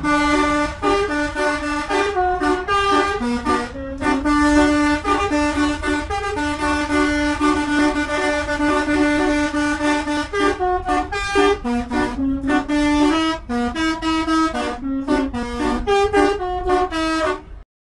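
Indonesian bus telolet multi-trumpet air horn played as a melody from a keyboard on the dashboard: a run of short horn notes stepping up and down in pitch, a long held note in the middle, then more quick notes until it cuts off suddenly near the end.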